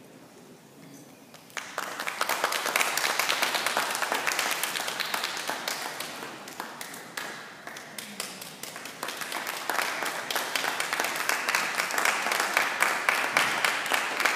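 A small audience applauding, the clapping starting suddenly about a second and a half in after a quiet pause and carrying on steadily, marking the end of a dance performance.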